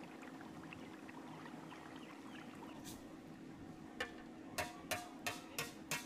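A quick run of six sharp knocks, starting about four seconds in and spread over about two seconds, over a steady faint hum.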